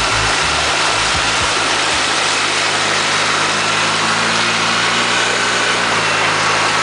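Polaris quad (ATV) engine running steadily as it drives through a shallow river, under a constant rush of water.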